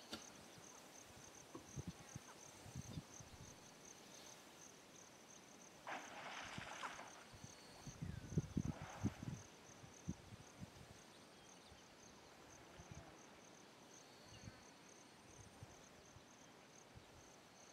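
Faint, steady, high-pitched pulsing trill of an insect chirping on and on. A brief hissy burst comes about six seconds in, and a few low thumps about eight to nine seconds in.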